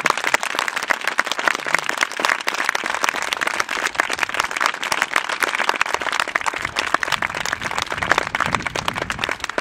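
Crowd applauding: many hands clapping, dense and irregular, steady throughout.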